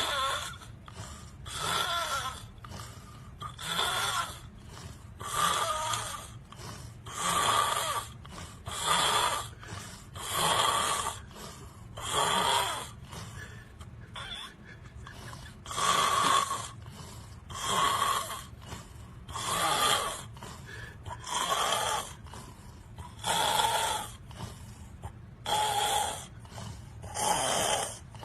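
A person snoring loudly and rhythmically, one long snore about every two seconds.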